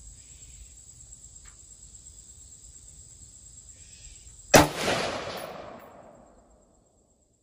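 A single shot from a JRA Gallant, a Galil-pattern 5.56 mm rifle, about four and a half seconds in, echoing and fading over about two seconds.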